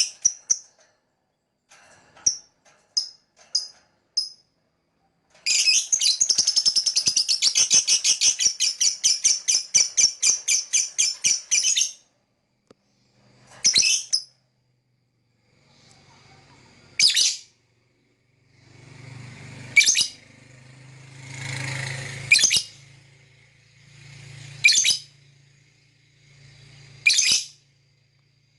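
Lovebird chirping: a few short chirps, then a long rapid chattering run of chirps lasting about six seconds, then single loud shrill calls every two to three seconds.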